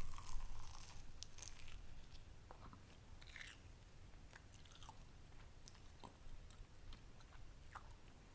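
Close-up sounds of a person biting into a baked egg wrap with a soft crunch, loudest right at the start and again about three seconds in, then quieter chewing with small wet clicks.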